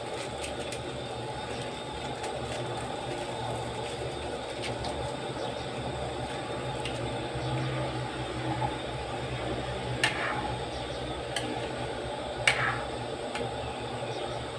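A stove burner heating a pan of coconut-milk chicken soup: a steady low rushing noise, with two sharp clicks about ten and twelve seconds in.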